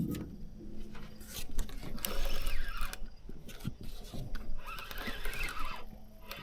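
Fishing reel ratcheting and whirring in irregular spells, a rough clicking mixed with a wavering squeal.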